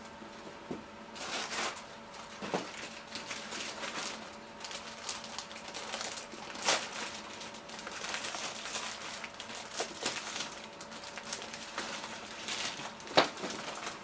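Food-preparation handling noises: rustling with scattered small clicks and knocks of utensils and containers, and a sharper knock near the end.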